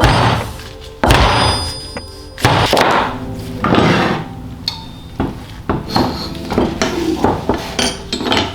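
Metal motorcycle fork parts clunking and scraping as the fork internals are handled: four loud knocks about a second apart over the first four seconds, each trailing off, then lighter clicks and knocks. Background music plays underneath.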